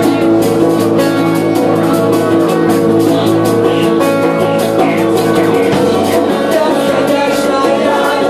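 Rock band playing live in an acoustic set, an instrumental passage with guitars over a steady driving drum beat.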